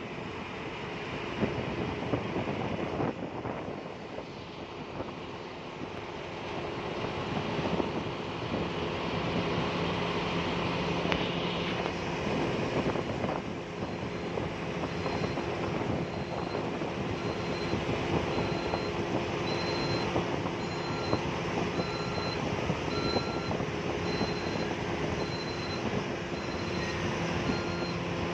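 Steady rushing of wind and river water, an even noise. Faint short high pips repeat at an even pace from about halfway through.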